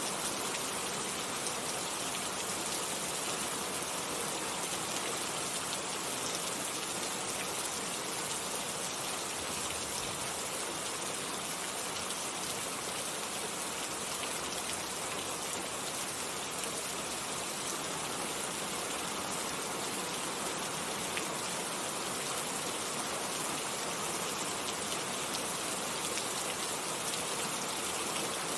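Steady rain falling, a dense even hiss of drops with no let-up.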